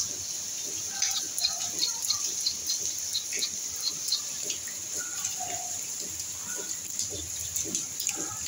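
Steady rain hiss, with many quick drips of water landing close by.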